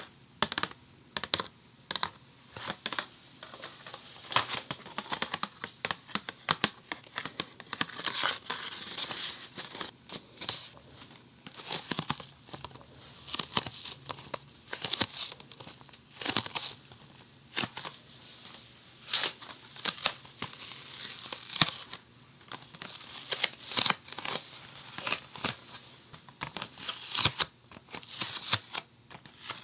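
A Funny Foam box being unpacked close to a binaural dummy-head microphone: irregular tearing and crinkling of the packaging, with many sharp crackles and taps.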